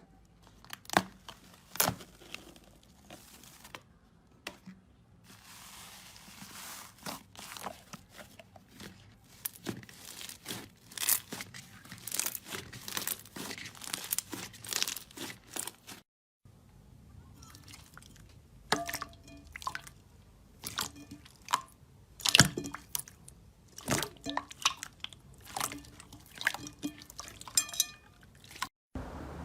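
Slime being squeezed and poked by hand, giving a run of sharp sticky pops, crackles and crunches. It breaks off briefly about a third and halfway through, then starts again.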